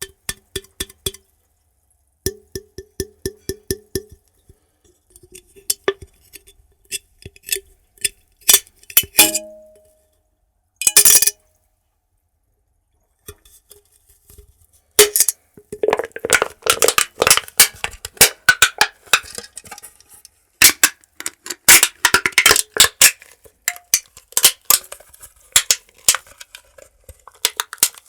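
Ice cubes clinking against a drinking glass. For the first nine seconds they come as separate taps with a ringing glass tone. A short hiss follows near eleven seconds, then from about fifteen seconds a dense run of rapid clinks and crackles.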